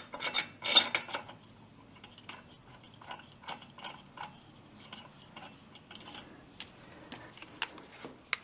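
Hand ratchet clicking while turning the bolt of a clutch puller into the Kawasaki Mule 3010's drive clutch, a run of short clicks about two to three a second. A few louder metal clanks come in the first second.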